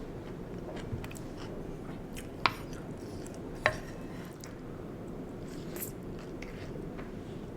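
Close-miked chewing and mouth sounds of a person eating sweet potato boats, with scattered soft clicks and two sharp, loud clicks a little over a second apart.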